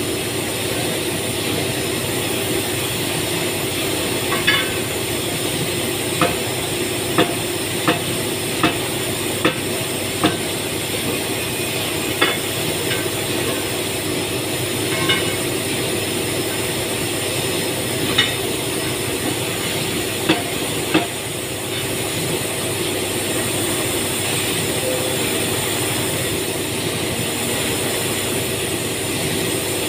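Steady hum of factory machinery, with about a dozen sharp metallic clinks at irregular intervals between about four and twenty-one seconds in, from hand tools working on a press mold.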